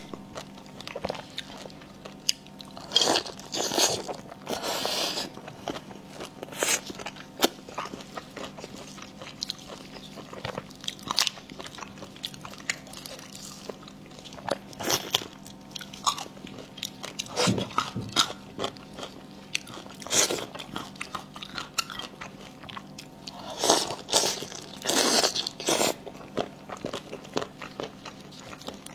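Close-up eating sounds: a person chewing and biting food, with bursts of crunching and wet mouth noises.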